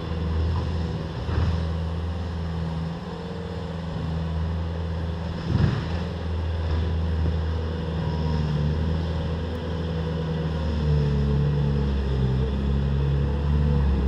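Bobcat T300 compact track loader's diesel engine running under load as it pushes fill, its pitch shifting up and down as the machine works. A single sharp clank about five and a half seconds in.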